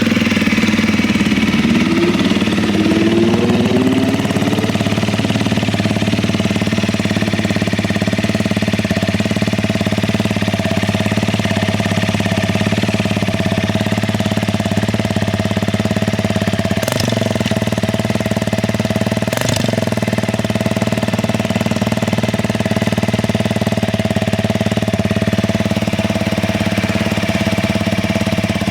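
Honda CRF250L's single-cylinder four-stroke engine idling steadily through an SP Tadao POWERBOX stainless exhaust pipe and silencer. Two brief clicks sound about two-thirds of the way through.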